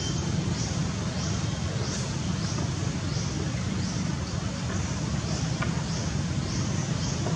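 Steady outdoor ambience: a constant low rumble, with a high rasping call repeating about twice a second.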